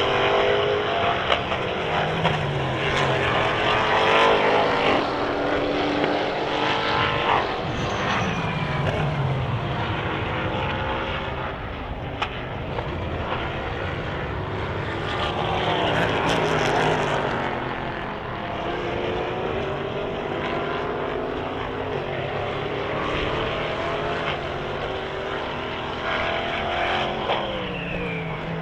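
Endurance race cars running on the circuit, several engines overlapping, their pitch repeatedly rising and falling as cars pass, accelerate and slow.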